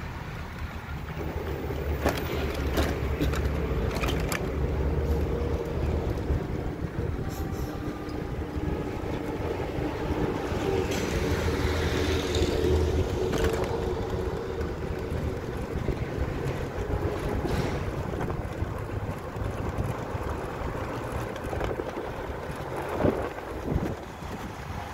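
A road vehicle's engine running steadily as it drives along, with wind rumbling on the microphone.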